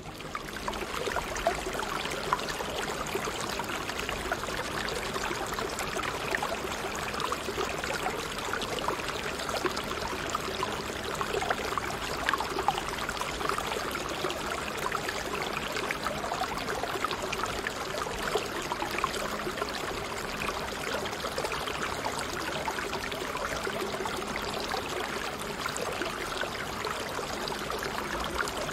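Steady sound of running water, like a flowing stream, used as a continuous background bed; it rises in over the first second and then holds level.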